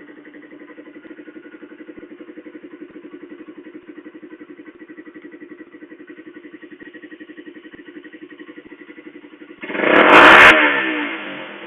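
Suzuki motorcycle with a very loud exhaust idling with a steady, rapid pulse, then one sharp blip of the throttle about ten seconds in, the loudest moment, with the engine note falling back to idle.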